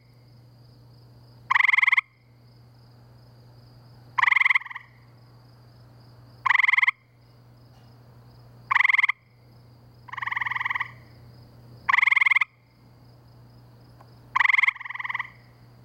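Male gray treefrogs giving their trilled advertisement (mating) calls: short trills of about half a second, repeating every two seconds or so. A second, quieter frog answers twice, about ten and fifteen seconds in.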